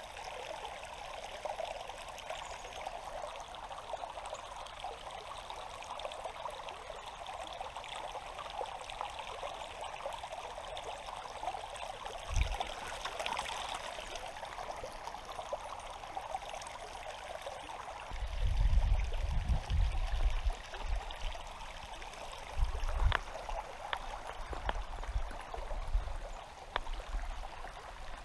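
Shallow river water running and trickling over rocks, a steady rushing hiss. Low thuds and rumbles come and go in the last third, the loudest about two-thirds of the way through.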